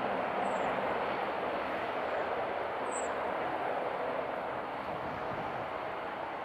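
Embraer E175's twin turbofan engines at approach power as the jet flares to land: a steady rushing jet noise that slowly fades.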